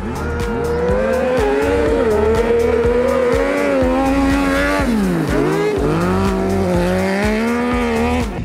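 Race car engine running at high revs on an ice track. Its pitch wavers, drops sharply about five seconds in, then climbs back up.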